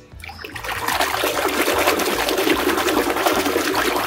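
Water sloshing and splashing in a plastic tub as a muddy plastic toy is swished through it by hand to wash the mud off. The sound builds over the first second, holds steady, then cuts off abruptly at the end.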